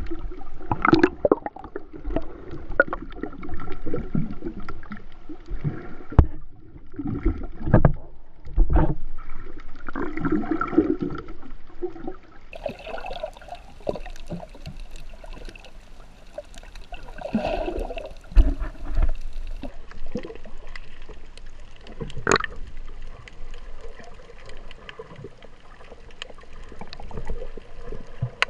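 Water sloshing and gurgling around an underwater camera, muffled and uneven, with irregular thumps and swirls. About twelve seconds in the sound turns brighter and hissier as the camera comes up near the surface.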